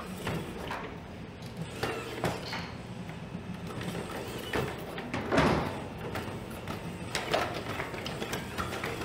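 Boston Dynamics Atlas humanoid robot walking and handling a wooden plank: a series of knocks from its feet and the wood, with the loudest thud about five and a half seconds in, over a steady low hum.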